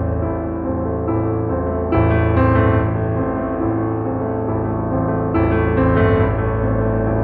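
Background piano music: sustained chords struck every couple of seconds.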